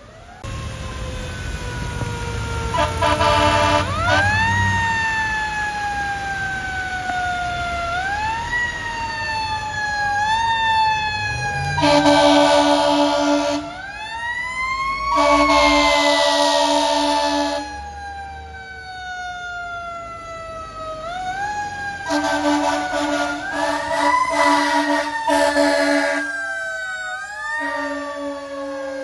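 Fire engine siren wailing, its pitch sweeping up quickly and falling slowly over and over. Several long blasts of the truck's air horn come over it, the longest about four seconds, as the apparatus passes.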